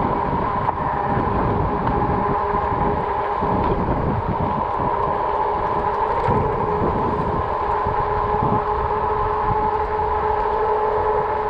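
RadRover fat-tire electric bike riding along with a steady high whine from the moving bike, under wind gusting on the microphone.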